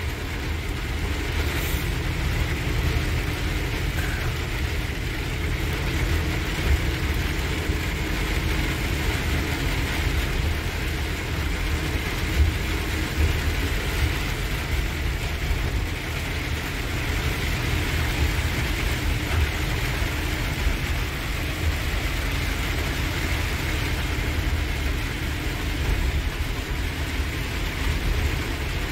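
Heavy truck driving on a wet highway in heavy rain, heard from inside the cab: a steady low engine rumble under an even hiss of rain and tyres on the wet road.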